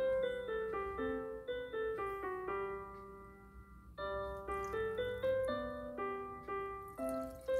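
Background solo piano music: a gentle melody of single notes, briefly softer about three seconds in.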